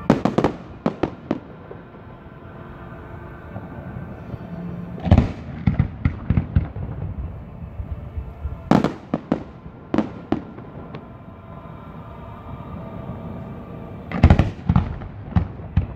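Aerial fireworks shells bursting in volleys of sharp bangs: one cluster at the start, then others around five, nine and fourteen seconds in.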